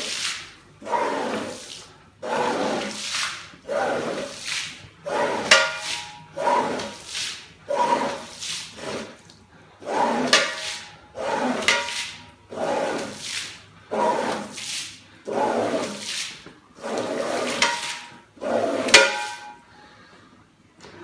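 Squeegee on a long pole pushed in repeated swishing strokes across a soaked rug, sweeping water off the pile, about one stroke a second. A few strokes carry a short squeak, and the strokes stop about a second before the end.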